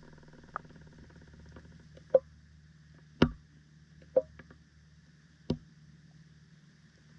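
Underwater pond sound picked up by a GoPro in its waterproof housing: a faint steady low hum with about five sharp, isolated clicks and taps spaced irregularly through it.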